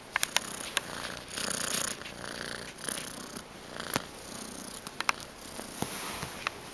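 Young gray tabby domestic shorthair cat purring steadily while being scratched around the head and neck. Several sharp clicks and a brushing rustle, loudest about a second and a half in, come from the hand and fur rubbing close to the microphone.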